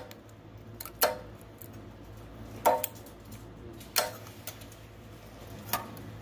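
About five sharp metallic clicks and taps, irregularly spaced, from a steel feeler gauge being moved and pressed between a small engine's ignition coil and flywheel while the coil's air gap is set.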